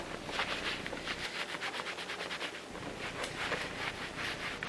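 A Clorox wipe rubbed quickly back and forth over a white Nike Air Force 1 sneaker, a rhythmic scrubbing of several strokes a second.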